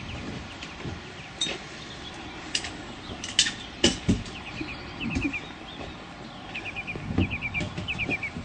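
Footsteps of a group of people walking slowly on pavement, with scattered sharp heel clicks and scuffs. A small bird chirps in short runs of four to six quick notes, several times.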